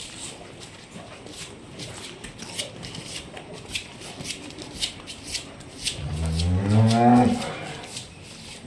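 A dairy cow mooing once, a low call of about a second starting some six seconds in and rising in pitch. Light scattered clicks and rustles come before it.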